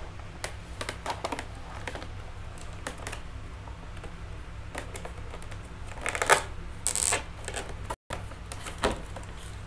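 Clear rigid plastic blister packaging clicking and crackling as it is handled and turned over, in scattered sharp clicks with a louder crinkle a little past the middle. The sound cuts out completely for an instant near the end.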